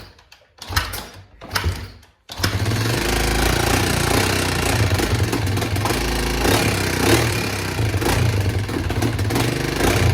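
Kawasaki Mojave 250's single-cylinder four-stroke engine being kicked over cold with the choke on. There are two short attempts in the first two seconds, then it catches a little over two seconds in and runs steadily.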